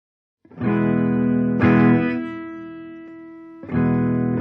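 Electric guitar played through a transistor boost circuit and amp: chords struck about half a second in and again a second later, ringing out and slowly fading, then struck again near the end.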